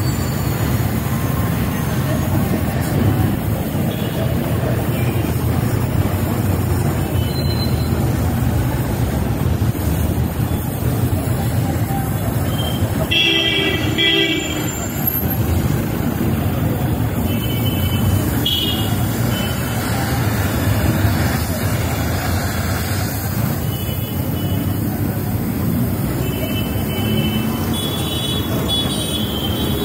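Steady low rumble of road traffic, with vehicle horns tooting briefly several times: twice about halfway through, and more often near the end. Under it runs the steady hiss of a gas welding torch's flame.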